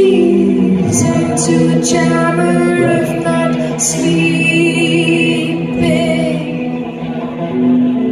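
Live band music with violin, guitars and drums under a female voice singing wavering held notes. The voice stops about six and a half seconds in, and the instruments carry on.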